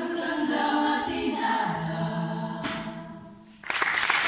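Youth choir and two lead singers holding the closing chords of a song, which fade out; about three and a half seconds in, the audience starts applauding.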